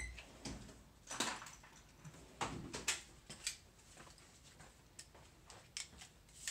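Scattered light clicks and knocks of hand tools and small parts being handled, with a few sharper ones clustered a little over two seconds in.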